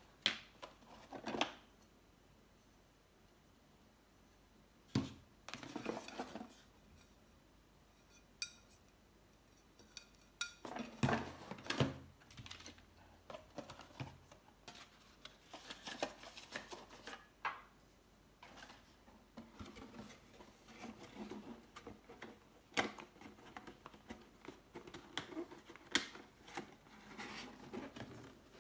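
Glass tableware being unpacked by hand: glass pieces knocking and being set down on a table, among the rustle and scrape of a cardboard box and corrugated cardboard packing inserts. There are a few sharper knocks, the strongest about a third of the way in.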